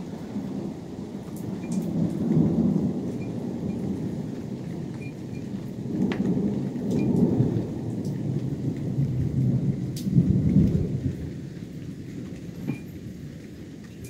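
Long rolling thunder that swells three times, loudest about two, six to seven and ten seconds in, then rumbles away.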